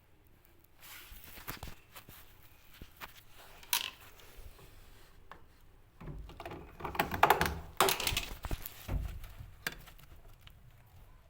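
Irregular knocks, clicks and scraping of objects being handled, with the loudest cluster of clatter between about six and nine seconds in.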